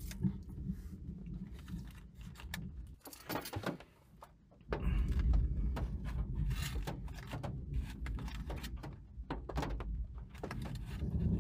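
Thunderstorm heard from a parked car: a low rumble of wind and rain, a few clicks and knocks inside the car, then about five seconds in a loud, steady low rumble sets in suddenly.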